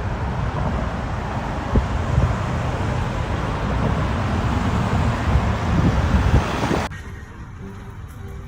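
Freeway traffic noise: vehicles running, with road and wind noise. It cuts off suddenly about seven seconds in, and faint music follows.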